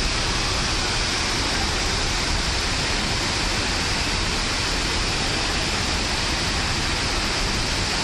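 Waterfall pouring into its pool: a steady, unbroken rush of falling water.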